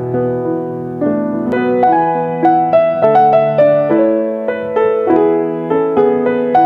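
Piano music: a melody of struck notes over held chords, the notes coming faster after about two seconds.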